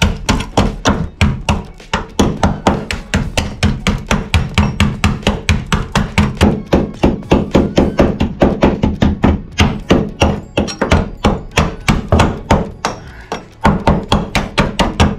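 Rapid knocking, about five blows a second, of a testing axe struck against the steel sill and wheel-arch panels of a Nissan Elgrand van, probing the metal for rust rot; a short break about 13 seconds in.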